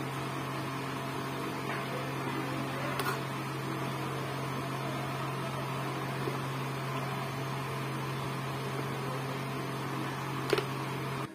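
A steady low hum throughout, with two light knocks of a steel mesh sieve being tapped while gram flour is sifted, the louder one near the end.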